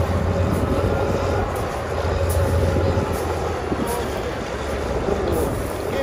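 Caterpillar crawler bulldozer's diesel engine running with a steady low rumble, which weakens after about three seconds.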